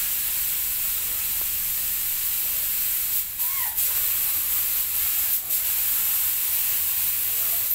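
Steady high-pitched hiss with a few brief dips.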